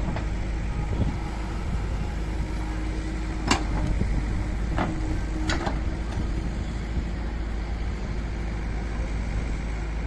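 Diesel engine of heavy machinery running steadily, with a few sharp clicks or knocks about three and a half to five and a half seconds in.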